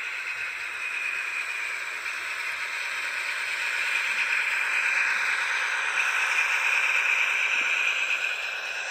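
N-gauge model diesel locomotive and its wagons running on the layout's track, a steady whirring hiss that grows louder as the train approaches and falls away again just after it reaches the viaduct.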